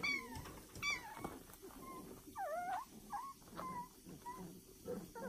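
Young puppies squeaking and whining as they wrestle. There are two sharp high yelps at the start and about a second in, then a wavering whine and a few short squeaks, over low growly grumbling.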